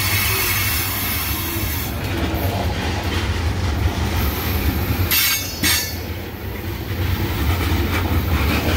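Freight train of tank cars rolling past: a steady low rumble of wheels on the rails, with a high screech from the wheels for the first two seconds and again briefly about five seconds in.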